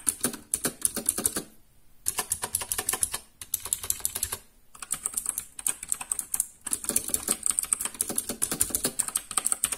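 Fast typing on a mechanical keyboard with blue (clicky) switches: dense, loud clicking keystrokes, with two brief pauses. It has a really loud sound.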